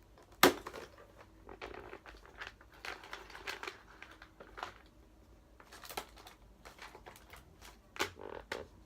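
Rummaging through fishing lures and their packaging: scattered rustling and small clicks and knocks, with one sharp click about half a second in.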